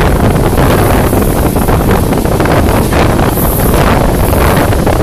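Loud, steady wind rushing over the microphone together with the running noise of a moving passenger train, recorded from aboard the train.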